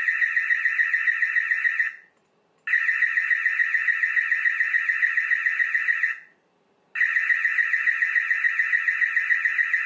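Built-in active-deterrence siren of a Dahua DH-HDW3549-AS-PV camera sounding, set off by its video motion detection: a loud, high warbling alarm tone in three bursts, with short breaks about two and six seconds in.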